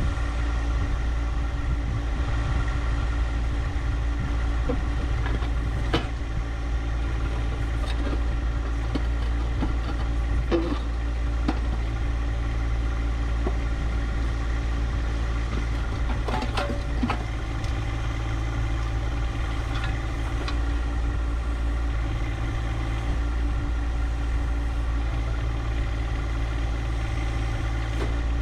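John Deere 1025R compact tractor's three-cylinder diesel engine running steadily, with a few short knocks and clicks over it.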